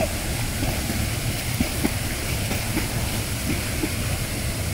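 Steady rushing of a waterfall pouring into a rock pool, with a heavy low rumble underneath.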